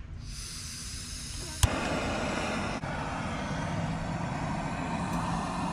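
Portable camping gas stove being lit. Gas hisses on, an igniter clicks about a second and a half in, and the burner catches and burns with a steady, fuller rushing sound.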